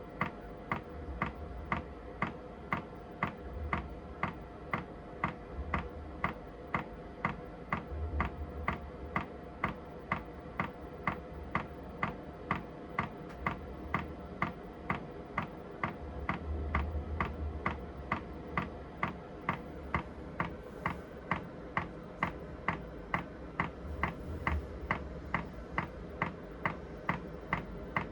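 Chinese diesel heater's fuel dosing pump ticking steadily, about two to three ticks a second, over the low hum of the heater's fan during its start-up.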